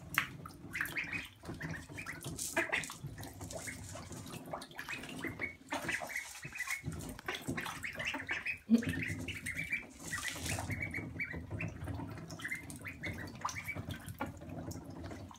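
A group of ducklings peeping in short, high chirps over and over while they dabble and splash in shallow bathwater. A single sharp knock stands out a little before the middle.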